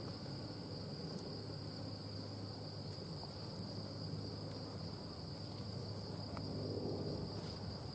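Steady, high-pitched insect chorus, like crickets trilling continuously, over faint low background noise.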